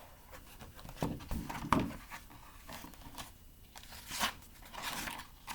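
Paper rustling and light knocks from a picture book being handled, several separate short rustles.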